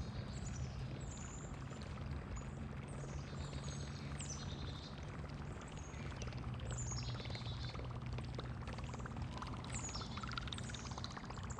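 Small birds chirping, a string of short high calls that each drop in pitch, repeating every second or so, over a steady low hum.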